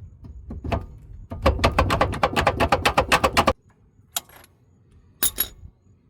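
A wrench working a wheel hub retaining bolt: a fast, even run of loud ticks, about ten a second, lasting about two seconds and cutting off abruptly, then two single clicks.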